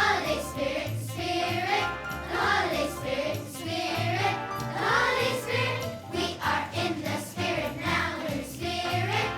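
Elementary school children's choir singing a holiday song over instrumental accompaniment with a steady bass beat.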